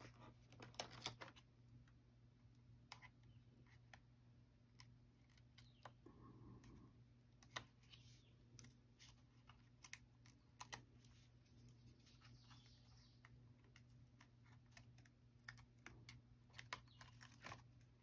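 Faint, scattered ticks, taps and light rustles of small cardstock pieces and foam adhesive dimensionals being handled and pressed onto a card, over a steady low hum.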